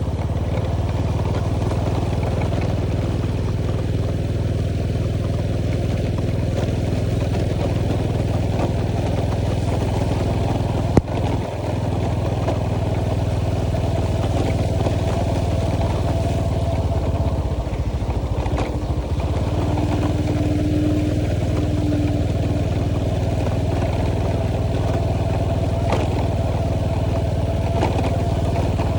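Motorcycle engine running steadily at a constant speed, with one sharp knock about eleven seconds in and a brief steady tone a little past the middle.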